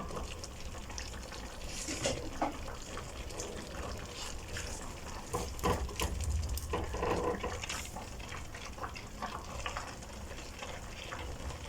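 Cooked pasta being stirred into a thick sauce in a pan over low heat: soft, wet stirring sounds with occasional light clicks of the utensil against the pan.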